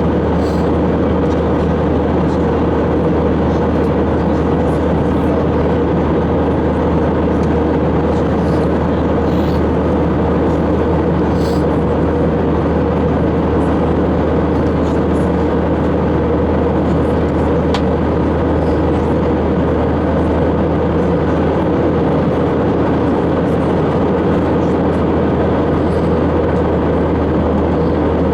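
Airbus A321 cabin noise in flight: a steady drone of the engines and rushing air, with a low hum and a steady mid-pitched tone.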